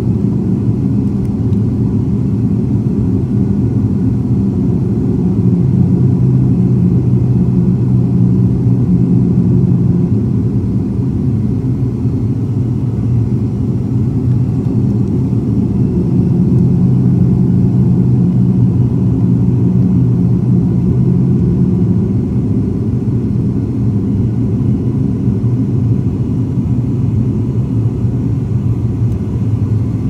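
ATR turboprop's engines and propellers heard inside the passenger cabin on descent: a steady, deep drone with a low hum in it, swelling slightly twice.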